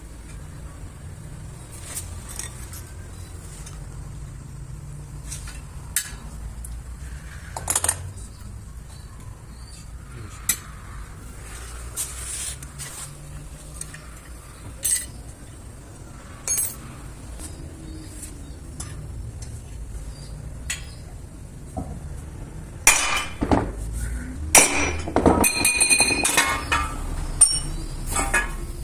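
Metal tools and parts clinking and knocking now and then over a steady low hum. Near the end comes a quick run of louder, ringing metal strikes.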